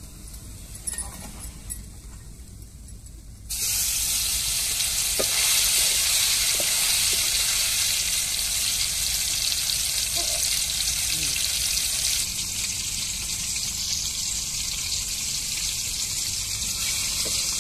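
Masala-coated soya chunks deep-frying in hot oil in an aluminium pan: a steady loud sizzle that comes in abruptly about three and a half seconds in, after a quieter stretch with a few light clicks.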